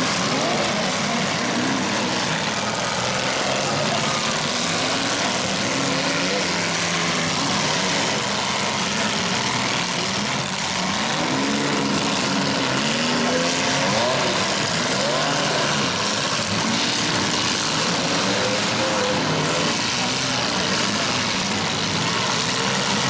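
Many demolition derby compact cars' engines running at once, revving up and down in a steady, loud din.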